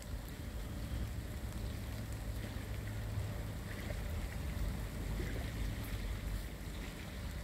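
Plough dredger's engine heard across the water as a steady low rumble while it tows through the channel, mixed with wind buffeting the microphone.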